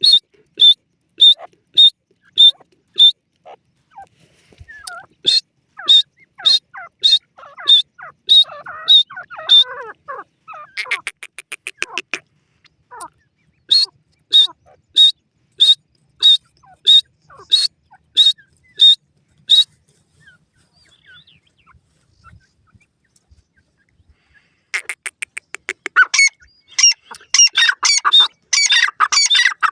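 Francolin (teetar) calling: runs of short, sharp, high notes repeated about twice a second, broken by a rapid trill about eleven seconds in. It goes quiet for a few seconds past the middle, then ends in dense, overlapping calling.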